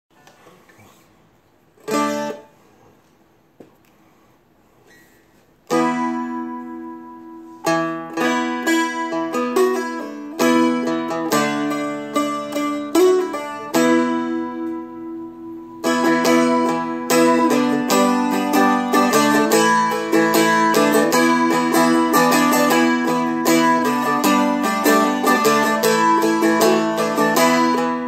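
A four-string Seagull Merlin played with a pick: one strum about two seconds in, then after a short pause slow chords left to ring out, turning into steady strumming with picked notes about halfway through.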